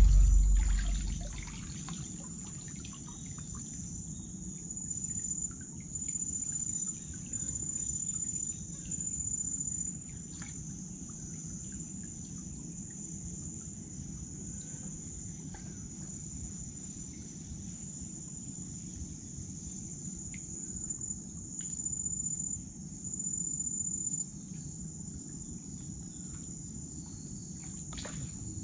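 Insects trilling: a steady high, thin buzz with louder runs of about a second each, four in a row from about five seconds in and two more a little past twenty seconds.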